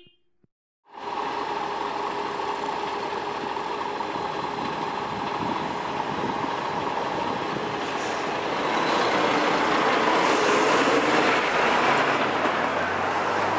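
Road traffic at close range: engines of a queue of cars and a box lorry running beside the road, a steady noise that starts about a second in and grows louder in the second half.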